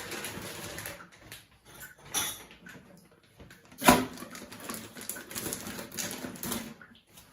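Packaging of a new toilet cistern fill valve being opened and the plastic parts handled: rustling and scratching in uneven bursts, with one sharp knock about four seconds in.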